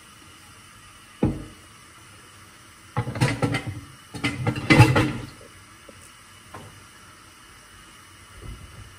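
A wooden chopping board knocking against a plastic bowl and countertop: one thump about a second in, then two bursts of knocks and clatter around three to five seconds in.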